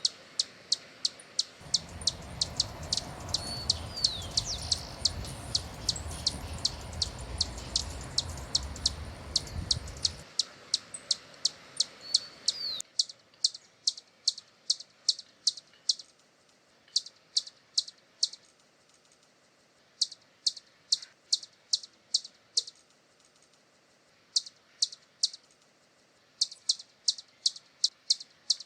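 Hummingbird giving runs of sharp, high chip notes, about four a second, broken by short pauses, with a few gliding chirps early on. A low rumble sits under the first ten seconds or so.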